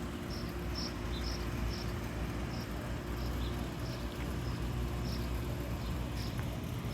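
A cricket chirping, short high chirps about twice a second, over a low steady hum.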